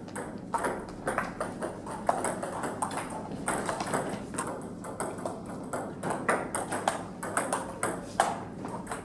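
Table tennis rally: the ball clicking sharply and repeatedly off the bats and the table, many hits in quick succession, with more ball clicks from neighbouring tables.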